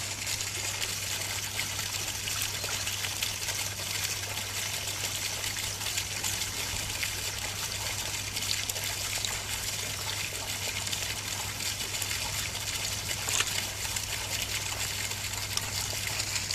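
Steady trickle of a shallow stream running over its bed, with a constant low hum underneath.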